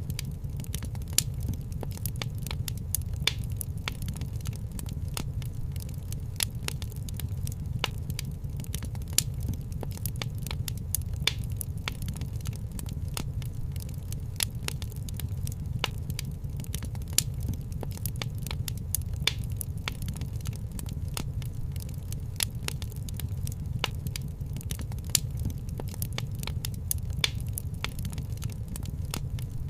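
Wood fire crackling in a fireplace: irregular sharp pops and snaps, several a second, some louder than others, over a steady low rumble of the burning fire.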